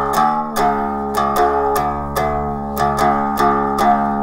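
One-string acoustic cigar-box diddley bow plucked in a steady run of single notes, about two a second, with a low note sustaining underneath.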